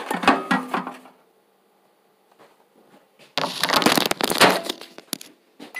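Handling noise from a phone camera being picked up and moved: knocks and rubbing against the microphone in the first second, then after a near-silent pause a louder stretch of rustling and scraping with sharp clicks lasting under two seconds.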